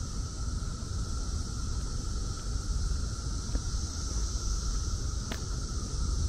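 Steady, unbroken chorus of Brood X periodical cicadas droning, over a low rumble of wind on the microphone, with a single sharp click about five seconds in.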